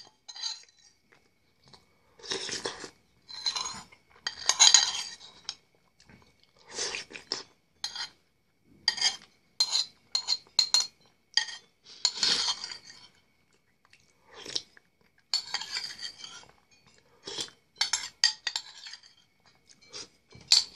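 Close-up eating sounds: a metal spoon clinking and scraping against a bowl of soup, with chewing and crunching, in a series of short bursts with short pauses between.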